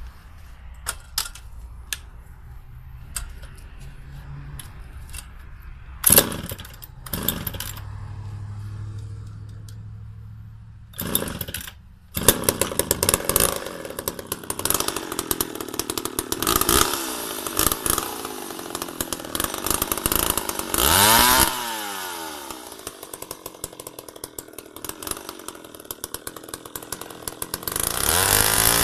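McCulloch Pro Mac 700 two-stroke chainsaw: after some clicks and a few short loud bursts, the engine starts and runs from about twelve seconds in. It idles and revs, with a pitch that drops and climbs again about two-thirds of the way through, then goes up to full throttle near the end.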